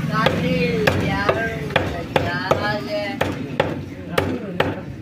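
Meat cleaver chopping raw chicken on a wooden log chopping block: a steady series of sharp chops, about two a second.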